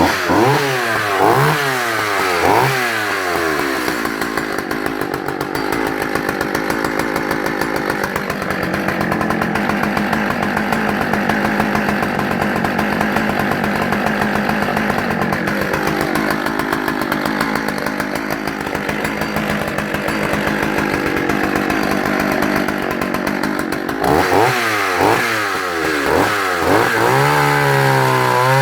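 Partner Farmsaw F55 two-stroke chainsaw revved a few times, then held under load cutting through a log for about twenty seconds. Near the end it comes out of the cut, is blipped again and drops to idle.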